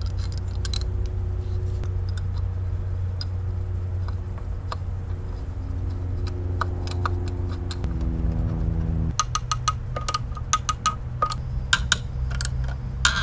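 Socket ratchet clicking in quick runs as the bolts of a new outboard anode are tightened, starting about nine seconds in. Before it come a few light metal clinks as the anode is handled and set in place, over a steady low hum.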